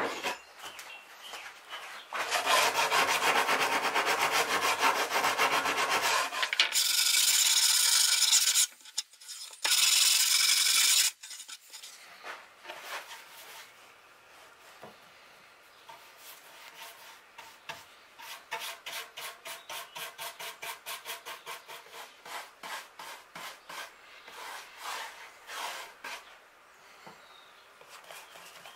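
Work on a plywood board: loud stretches of rough, scraping tool noise in the first ten seconds or so, then a quieter run of even rubbing strokes on the wood, about three a second, which stop near the end.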